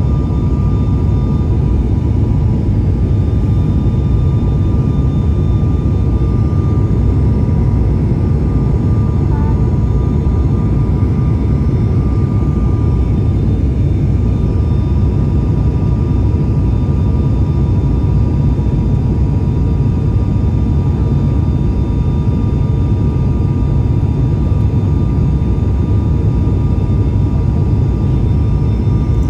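Cabin noise inside an ATR 72-500 turboprop airliner descending on approach: the engines and propellers give a steady, loud low drone with two steady high tones above it.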